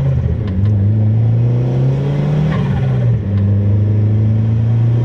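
Big-turbo 1.4-litre turbocharged four-cylinder of a Chevy Sonic pulling under load, heard from inside the cabin. Its pitch steps down twice, about half a second in and again about three seconds in, as at upshifts.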